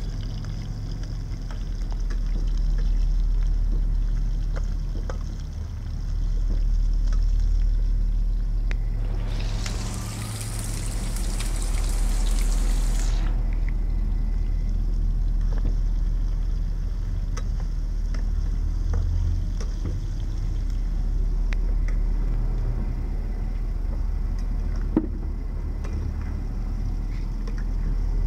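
Chicken pieces frying in oil in a metal wok, with occasional clicks and scrapes of a metal spatula against the pan, over a steady low rumble. A loud hiss lasts about four seconds near the middle.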